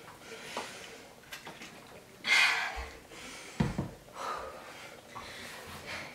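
A woman breathing hard after a round of jumping exercises, with one loud, rushing exhale about two seconds in. A short thump follows about a second later.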